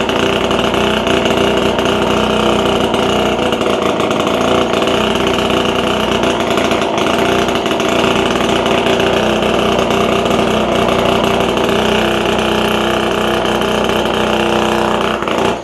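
Small 47cc two-stroke scooter engine running at a steady speed, a high, buzzing drone that cuts off suddenly near the end.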